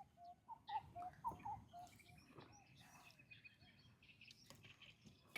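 Faint birdsong: a run of short low chirps in the first second and a half, then a quick string of higher repeated notes.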